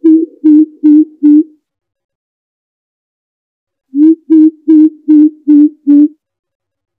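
Greater coucal giving its deep hooting call, a run of evenly spaced low hoots about three a second. The run stops about a second and a half in, and a new series of six hoots starts about four seconds in.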